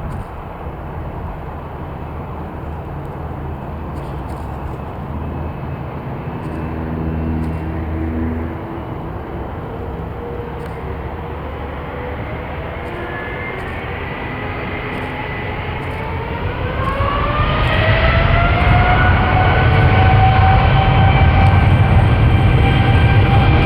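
Boeing 787-9's Rolls-Royce Trent 1000 turbofans spooling up for takeoff. A whine of several tones climbs slowly, then steeply about 17 seconds in, and levels off as the engine rumble grows louder.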